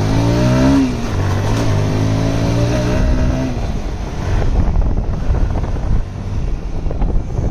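Motorcycle engine pulling away, its pitch rising and then dropping about a second in as it shifts up a gear. It runs steadily for a few seconds, then sinks under wind rush on the microphone as the bike rolls on.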